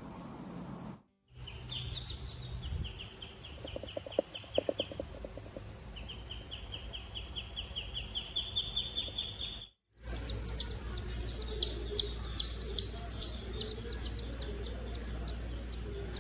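Small birds chirping in fast, even series of high notes, cut off twice by brief gaps; after the second gap the chirps are louder, each one falling in pitch.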